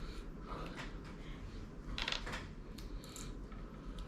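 Plastic hot sauce bottle being opened by hand: a few light clicks and crinkly scrapes from the cap and its plastic safety seal.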